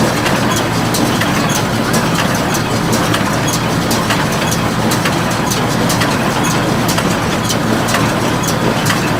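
Tractor-driven IH 430 square baler running: a steady engine noise with frequent sharp mechanical clicks.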